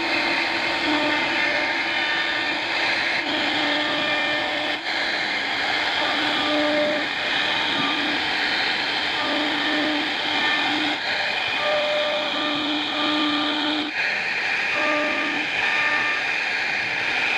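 CNC router cutting wood: a steady spindle whine over a dense hiss of cutting, with the whine's tone coming and going in short stretches as the bit works.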